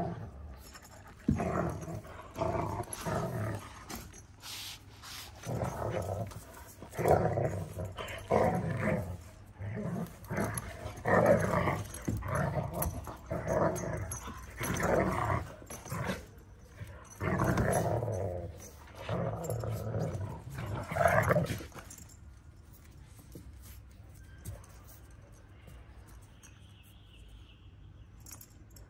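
Two eight-month-old Kangal dogs play-fighting, growling in irregular bursts for about twenty seconds, then going quiet as they break apart.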